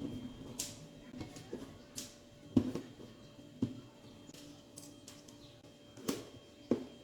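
An action-figure box and its packaging being handled during unboxing: scattered taps, clicks and rustles, about six in all, the loudest about two and a half seconds in.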